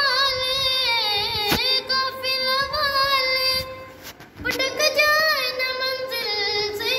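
A boy singing an Urdu naat through a microphone, with no instruments. He draws out long, wavering notes in two phrases, with a short breath about four seconds in. There is a single sharp click about a second and a half in.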